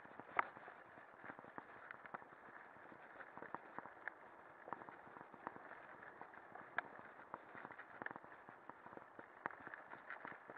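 Lapierre mountain bike riding fast over a dirt forest trail: a steady rushing noise from the tyres and air, with frequent sharp rattles and knocks as the bike bounces over bumps and roots, the strongest knock about half a second in.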